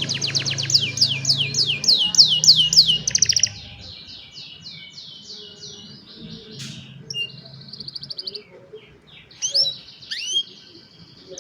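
Young domestic canaries singing. The song opens with a loud run of quickly repeated falling notes lasting about three and a half seconds, then goes on in softer repeated notes and a buzzy rolling trill, with a few sharp rising and falling whistles near the end.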